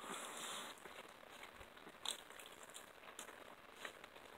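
Faint eating sounds of chicken eaten by hand: biting and chewing meat off the bone, with scattered small crunches and mouth clicks, a sharper click about two seconds in.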